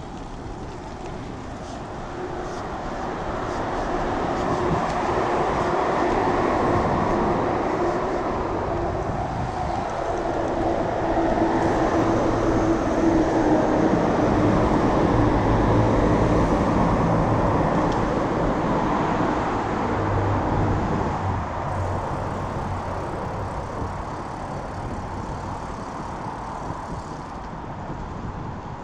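A train passing close by: a steady rumble and hum that grows louder a few seconds in, holds for about fifteen seconds and then fades away.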